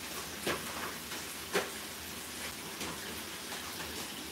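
A few faint light clicks and taps of a chef's knife and coriander being handled on a plastic cutting board, the sharpest about one and a half seconds in, over a quiet steady hiss.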